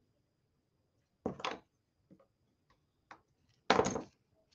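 Small die-cut cardstock pieces being folded and handled on a scoring board: a short crisp knock about a second in, a louder one near the end, and a few faint ticks between.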